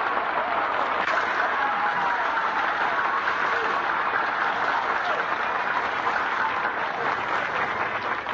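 Studio audience applauding, a steady, even clatter of many hands, heard on an old radio broadcast recording.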